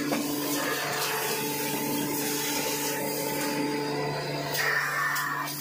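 V-fold facial tissue making machine line running: a steady motor hum with mechanical whirring and clatter, and a brief louder hiss near the end.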